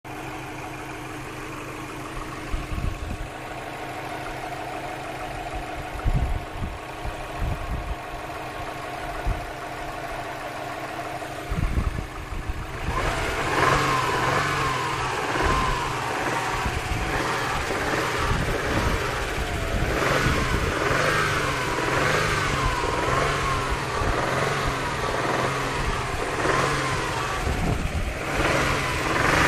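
Subaru WRX flat-four boxer engine idling, with a few low thumps, then from about halfway through revved up and down again and again. The owner hears a knock in it and wonders whether it is piston slap or a worn bearing.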